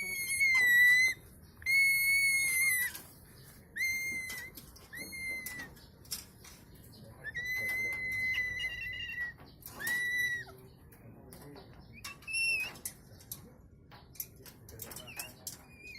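Cockatoo whistling: a string of about eight held notes at nearly one steady pitch, each from half a second to two seconds long, with one higher, shorter note near the end.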